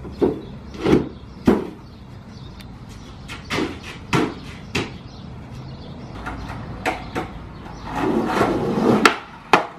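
Skateboard clacking on concrete: a series of sharp, separate knocks, then wheels rolling on concrete for about a second near the end, ending in two loud cracks close together.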